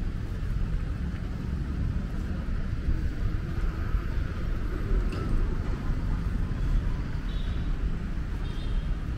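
Outdoor ambience dominated by a steady, heavy low rumble, with a few faint high chirps near the end.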